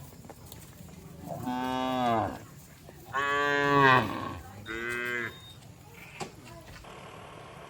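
Cattle mooing three times, each call about a second long and the third one shorter.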